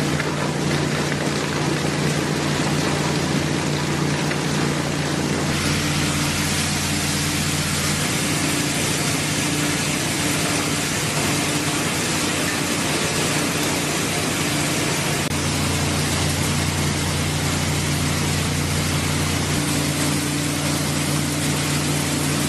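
PE film recycling and washing line running: a steady low hum of its electric motors under the rushing and splashing of wash water. The rushing grows brighter about five seconds in.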